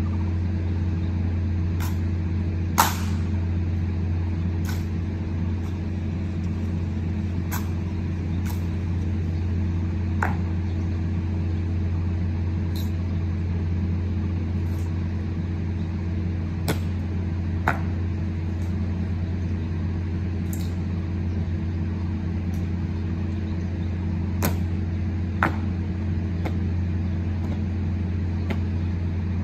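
Sharp single clacks from an honor guard's boot heels and rifles during a slow ceremonial march, coming a second or a few seconds apart, the loudest about three seconds in, over a steady low hum.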